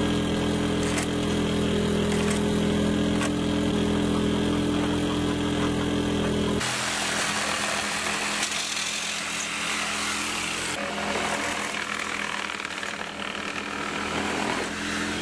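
A handheld corded power tool runs without a break as it works along a wooden window frame. A steady motor hum for the first six seconds or so gives way to a harsher, hissier sound as the tool bites into the wood, and the steadier note comes back near the end.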